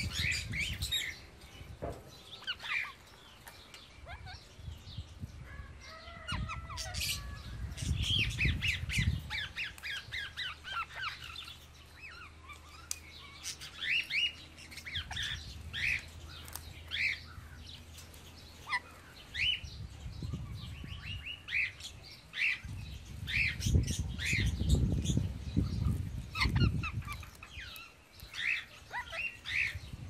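Parakeets chattering: many short squawks and chirps all through, with low rumbling noise coming and going now and then.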